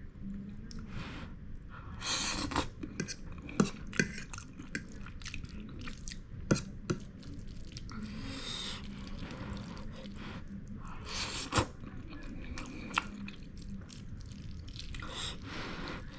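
A person eating instant noodles: wet slurps and chewing, with a few sharp clicks of a utensil against the plate or bowl.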